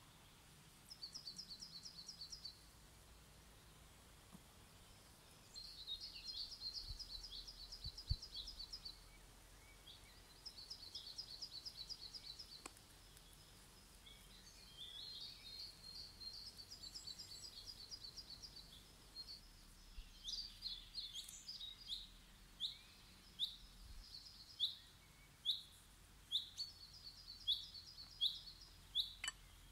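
Songbirds singing: several short, fast high trills, then from about two-thirds of the way through a run of single downward-sliding chirps about one a second. A couple of small sharp clicks stand out, once about a quarter of the way in and once near the end.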